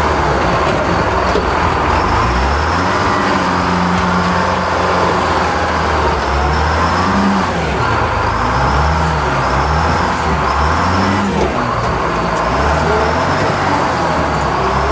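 Clark Michigan 75B wheel loader's diesel engine running, its pitch dipping and rising several times as the load changes, with a faint high wavering whine over it.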